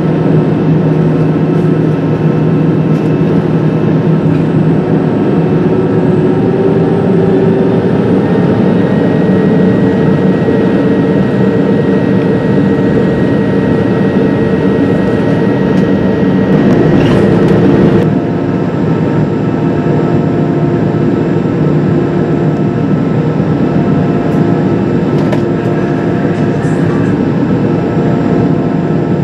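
Cabin noise of an Airbus A319-112 taxiing, heard from a window seat over the wing: its CFM56 engines give a steady hum and rumble with several held whining tones. One tone rises a little about seven seconds in, and the sound drops a step quieter about eighteen seconds in.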